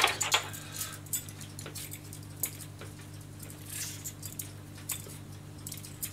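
Hand vegetable peeler scraping strips of skin off a piece of daikon radish in short, irregular strokes, after a brief clatter at the start. A steady low hum runs underneath.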